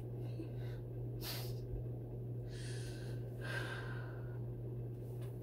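A woman crying without words: a sharp sniff about a second in, then a long shaky breath lasting about two seconds.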